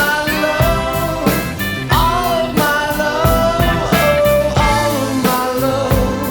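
Rock-style music with a singing voice over guitar and a steady beat.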